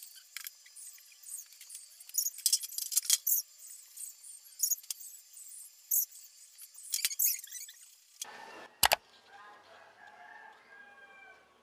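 Household items such as cans and containers being handled and set down, with scattered clicks and rustles. Near the end a rooster crows faintly.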